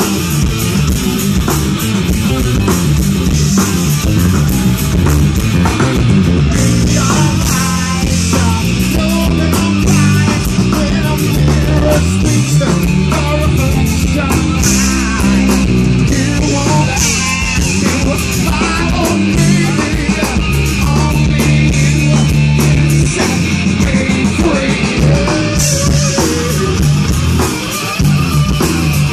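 Live rock band playing loud: electric guitar, bass guitar and drum kit, with a male lead singer's vocals over them.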